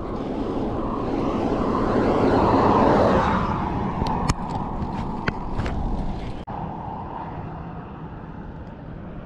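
A car passing on the highway, its road noise swelling to a peak about three seconds in and then fading, over steady wind noise on the microphone of a moving bicycle. About six and a half seconds in, the sound cuts abruptly to a quieter, steady open-air hush.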